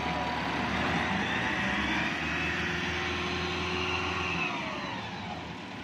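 Diesel tractor engine running under load as it pushes soil with a blade. The low engine rumble drops away about four and a half seconds in and the sound eases off near the end.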